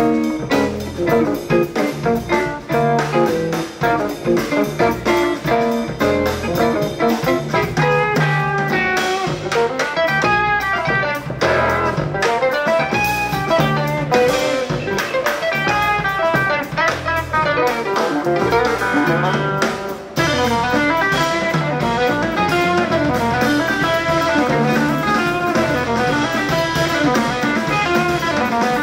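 Live instrumental jazz from a guitar quartet: electric guitars with bass and drums, busy picked lines that become denser and more sustained about twenty seconds in.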